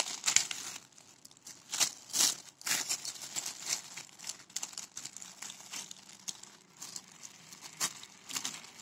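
Clear plastic packet of toy bamboo-copters crinkling in irregular crackles as hands open it and handle the contents.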